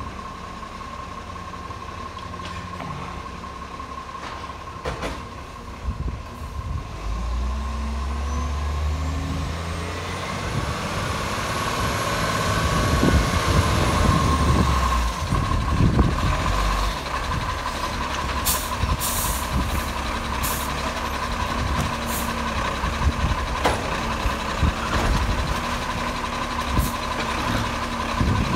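Iveco Acco side-loader garbage truck's diesel engine running louder as it drives up and pulls in, with short air-brake hisses as it stops. From then on a steady hydraulic hum runs as the side-loading arm works, lifting a bin near the end.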